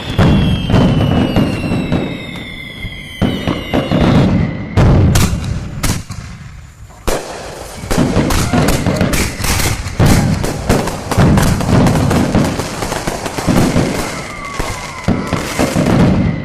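Fireworks going off in rapid succession: loud bangs and crackling with deep booms, and whistles falling in pitch in the first few seconds. There is a short lull about halfway through before the bangs resume.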